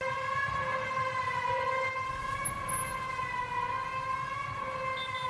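A single long, steady horn-like tone with overtones, wavering slightly in pitch.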